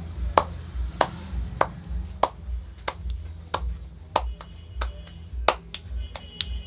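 A barber's hands striking the head or neck in a percussive massage: sharp chops or slaps about one every two-thirds of a second, coming closer together near the end. Background music with a steady bass beat plays under them.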